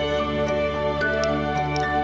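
Gentle background music: soft sustained chords over a held bass note, with light plucked or chime-like notes.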